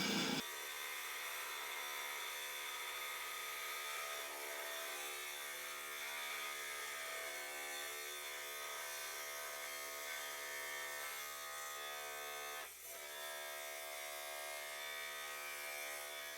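Electric rock saw running with a steady buzzing hum while cutting a thunder egg, with a brief dip about 13 seconds in.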